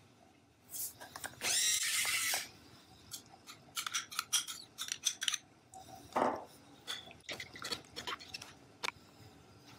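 Salt shaken from a carton onto raw chicken pieces in a rush lasting about a second. Then a spoon scrapes and clinks against a glass bowl as yogurt is spooned out, followed by wet squelching and rubbing as the chicken is mixed into the yogurt by hand.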